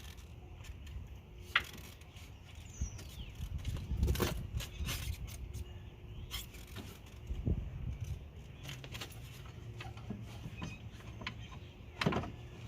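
Scattered clicks, knocks and light rattles of a plastic turn signal assembly being handled and worked into place in a car's front end, with one sharp click about one and a half seconds in and a louder knock near the end.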